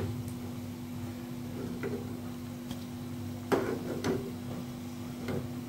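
A steel slotted spatula clicking and scraping against a black iron kadhai while turning and lifting out frying cabbage pakoras: a few light clicks about two seconds in, and the loudest knocks around three and a half to four seconds. Under them are a steady low hum and the faint sizzle of the frying oil.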